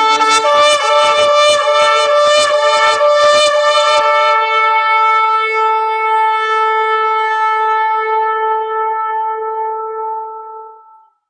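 A shofar being blown: first a quick run of short broken blasts, then one long held note that fades away near the end.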